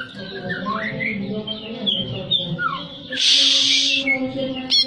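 Cucak ijo (green leafbird) singing: varied whistled notes that slide up and down, a loud harsh rasping note about three seconds in, and a quick run of sharp repeated notes near the end, over a steady low drone.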